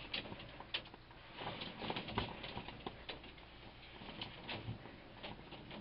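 Faint, irregular pattering and light knocks of wet dirt and grit falling down a borehole as a water hose is jiggled in it to settle the backfill.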